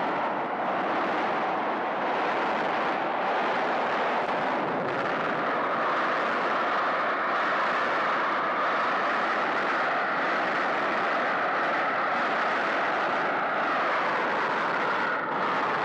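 F-100 Super Sabre jet fighters' engines at takeoff power, a loud steady rushing noise. The rush rises in pitch about five seconds in.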